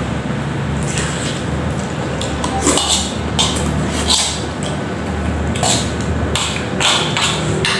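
Metal spoon and fork scraping and clinking against a metal wok as noodles are scooped up, mixed with eating noises, over a steady low hum.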